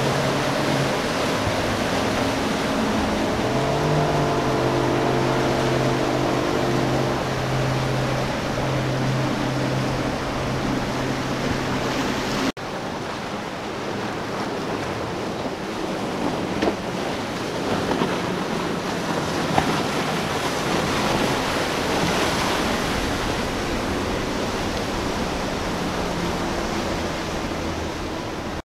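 Outboard motors of a center-console boat running at speed, a steady engine tone that rises briefly about four seconds in, over the rush of spray, waves and wind. About halfway through the sound cuts abruptly to another boat: mostly water and wind noise with a fainter engine tone.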